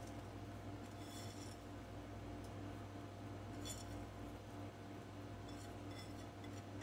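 A ceramic plate clinking lightly a few times against a cooking pot, over a low steady hum. Each clink is brief and light.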